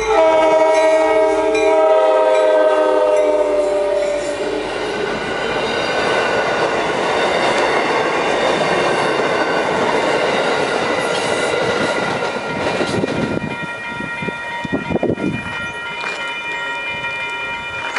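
A passenger train's multi-chime air horn sounds one long chord for about the first four seconds. The train then runs past over a grade crossing, its wheels clacking on the rail joints in the last few seconds, with the crossing bell ringing underneath.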